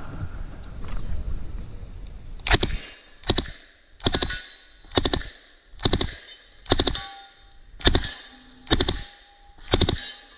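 Submachine gun firing short full-auto bursts of two or three shots, nine bursts about a second apart, starting a couple of seconds in.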